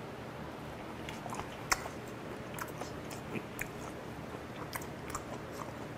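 Close-miked mouth sounds of someone chewing firm, chewy raw fish sashimi: a string of small wet clicks and smacks, with one sharper click a little under two seconds in.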